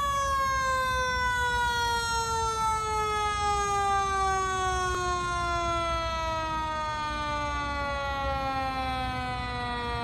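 Emergency vehicle siren sounding one long, sustained tone that slides slowly and steadily down in pitch, over a low rumble of traffic.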